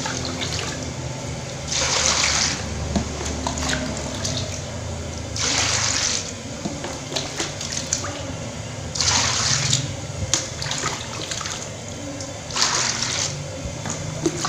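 Coconut milk poured from a plastic dipper into a wok, with about four rushing pours a few seconds apart, each lasting about a second. A low steady hum runs underneath.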